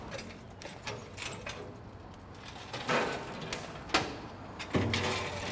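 Lit lump charcoal tipped from a metal chimney starter into a charcoal grill: a few scattered knocks and clinks, then a longer rattle of coals sliding out near the end.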